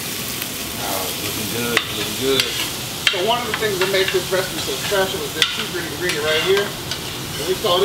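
Onions and garlic sizzling in butter in a frying pan while they are stirred. A utensil scrapes the pan and knocks against it a few times.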